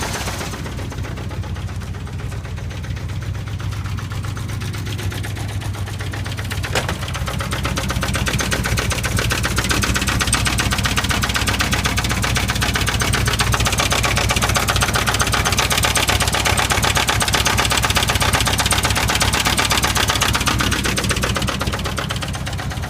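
1979 Chevy K5 Blazer's 350 small-block V8 running with a knock that the owner cannot place: a cracked or loose flexplate or a knock inside the engine. It gets louder about eight seconds in and eases back near the end.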